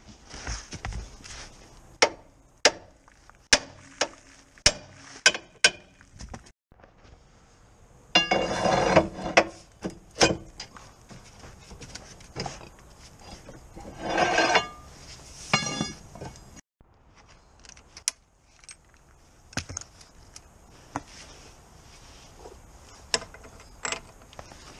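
Hammer striking steel on a car's front suspension, about eight sharp blows in a few seconds. Then come two bursts of metallic clattering and ringing as a long pry bar levers on the lower suspension arm, and a few scattered knocks near the end.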